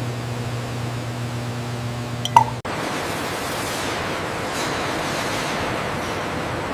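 Factory machinery noise: a steady hum with a few steady tones, a short high blip about two and a half seconds in, then an abrupt cut to an even rushing noise.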